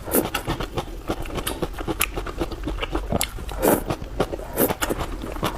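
Close-miked chewing of a mouthful of dressed shredded potato, a quick run of small crunches and wet mouth clicks.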